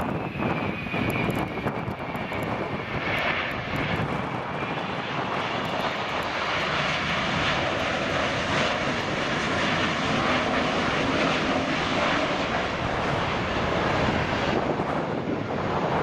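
Boeing 767 jet engines during touchdown and rollout. A whine falls in pitch over the first few seconds as the engines run at idle, then the engines spool up into a louder, rushing roar that holds as the airliner rolls down the runway.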